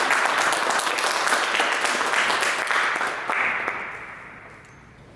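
A small group of people clapping by hand, the applause fading out about three and a half seconds in.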